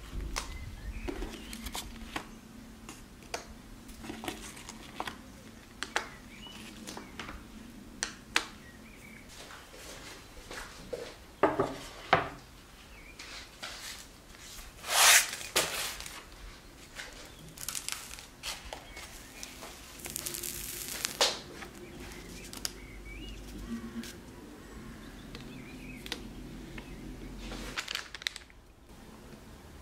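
Baking paper rustling and crinkling as it is handled on a wooden board, with small knocks and taps of a silicone mould and boards being set down. A few louder rustles come in the middle.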